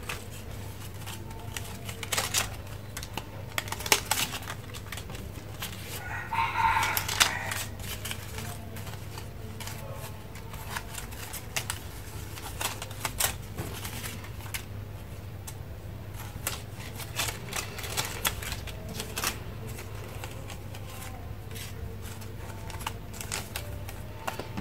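Scattered light clicks and taps of paper and tools being handled over a steady low hum. A rooster crows once, briefly, about six seconds in.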